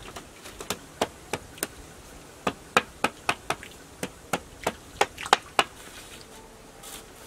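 About sixteen sharp knocks on split-bamboo slats in irregular runs, as the slats of a bamboo well lining are tapped into place. The knocks stop just before six seconds in.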